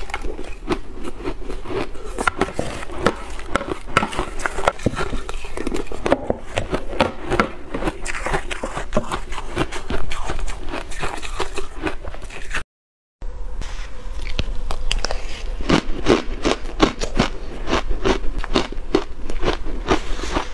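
Shaved blender ice being bitten and chewed: a quick, irregular run of crisp crunches, mixed with a metal spoon scraping the ice in a plastic jug. The sound cuts out for about half a second about two-thirds of the way through, then the crunching picks up again.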